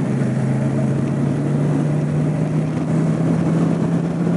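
Yamaha MT-10 SP's crossplane inline-four engine running while the bike cruises, its note rising slightly over the first couple of seconds and then holding steady.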